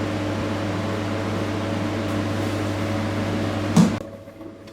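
Milk vending machine running steadily with a low hum as it dispenses fresh milk into a bottle, then shutting off with a short clunk just under four seconds in.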